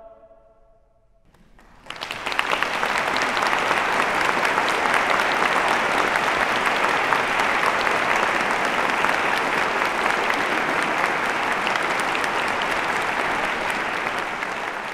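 The choir's final chord dies away in the hall's reverberation, then a concert audience breaks into steady applause about two seconds in, which carries on and eases slightly near the end.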